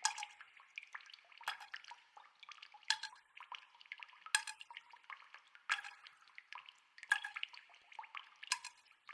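Water dripping: a louder drop lands about every second and a half, with smaller drips between, each giving a short ringing plink.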